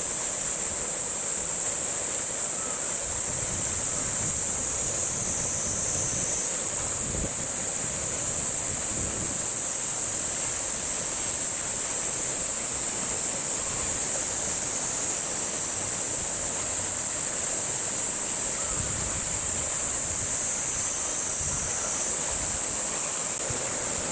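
Summer cicada chorus: a steady, high-pitched shrill drone without a break. Low wind rumble on the microphone comes and goes beneath it.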